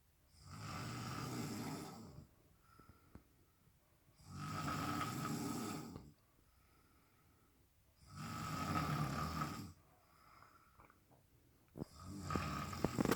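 Snoring: three long, regular snores of about two seconds each, roughly every four seconds, with a fourth, louder snore starting near the end.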